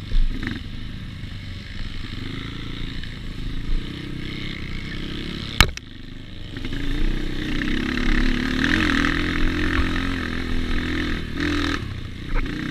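Trail motorcycle's engine running as it rides over rough ground, with a single sharp knock about halfway through. The engine then gets louder and its pitch rises and falls as the throttle is worked.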